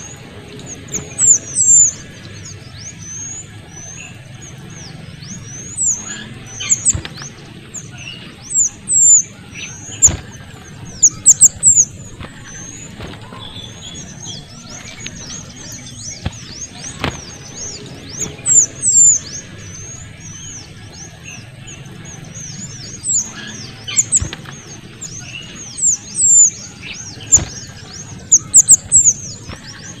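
Kuniran (mantenan kecil), a small songbird, calling: rapid, high-pitched squeaky chirps in quick clusters every second or two, loud and busy throughout.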